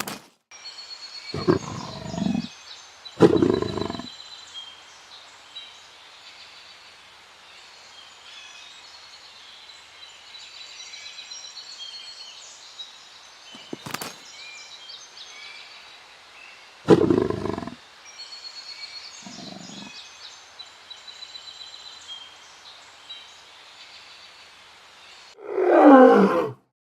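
Leopard growling in separate short bursts, the loudest and longest near the end falling in pitch. Birds chirp faintly throughout.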